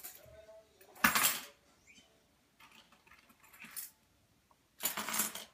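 Two brief jangling rattles, one about a second in and one near the end, with a few faint clicks between.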